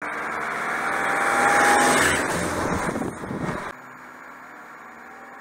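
Land Rover Defender driving past on a gravel road, its sound building to a peak about two seconds in and then fading. It cuts off suddenly after about three and a half seconds, leaving a faint steady hum.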